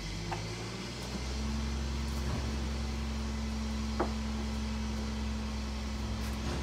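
A steady low mechanical hum, stronger from about a second in, with a few light clicks and one sharp click near the middle.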